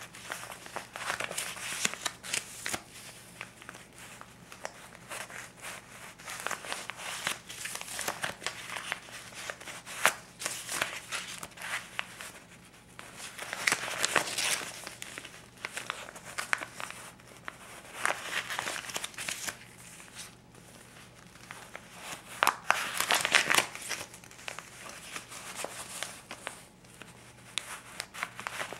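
Paper banknotes (US $20 bills) being handled and flipped through: crisp crinkling and rustling of the bill paper, with several louder flurries as the bills are moved.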